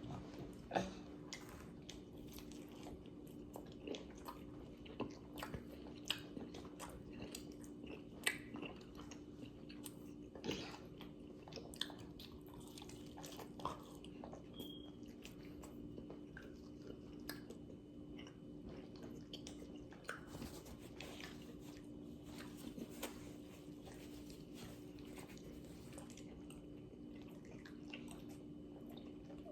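A person chewing and biting boneless chicken wings close to the microphone, with scattered soft mouth clicks and smacks.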